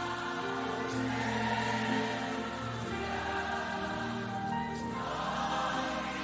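Slow gospel worship music: voices singing long held notes together over sustained chords, with the bass note changing about every two seconds.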